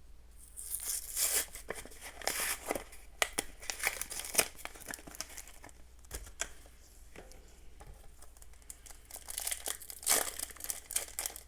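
A foil trading-card booster pack being crinkled and torn open: a run of sharp crackles and rips, calmer for a few seconds in the middle and busier again near the end.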